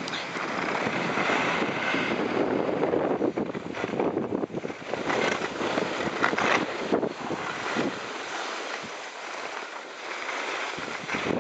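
Wind rushing over the microphone in gusty swells, with no distinct tones or rhythm.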